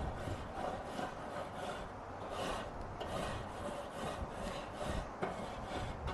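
A grill brush scrubbing the hot steel cooking grate of a Weber charcoal kettle, scraping in repeated back-and-forth strokes to clean it before cooking.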